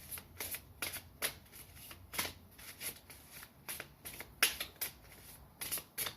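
Tarot cards being handled, shuffled and drawn from the deck: a run of quick, irregular card snaps and swishes.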